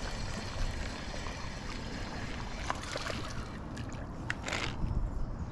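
Creek water running steadily, with a few short sharp sounds in the second half.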